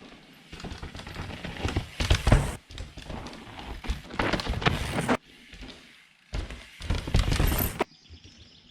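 Hardtail mountain bike being ridden: tyre and trail noise with thuds of landings, in short clips that start and stop abruptly.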